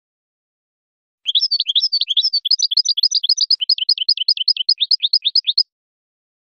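European goldfinch singing: a rapid run of short, high, sweeping notes, about ten a second, starting a little over a second in and stopping abruptly near the end.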